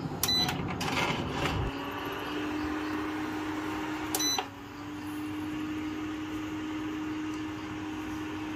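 Induction cooker's control panel beeps as its buttons are pressed, then the cooker starts heating with a steady low hum, with a second beep about four seconds in. It powers up and heats normally, which shows the fault that left it dead has been repaired.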